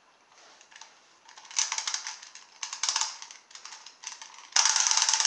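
Clockwork toy frog being wound: short bursts of fast ratchet clicks as the knob is twisted. About four and a half seconds in, a louder, continuous fast ticking starts, the clockwork motor running.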